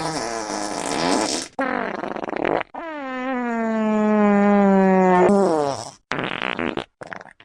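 A run of fart sound effects played back to back: a few short raspy ones, then one long, drawn-out toot about three seconds in whose pitch sags slightly, then several quick short ones near the end.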